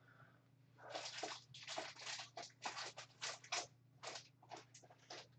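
Soft plastic card sleeves and trading cards rustling as they are handled, in a quick run of short swishes that starts about a second in.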